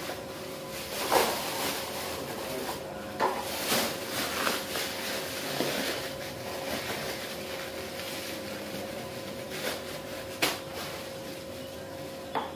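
Thin plastic bags rustling and crinkling as chili peppers are scooped and packed into them by hand, with a handful of short sharp crackles, the loudest about a second in. A faint steady hum runs underneath.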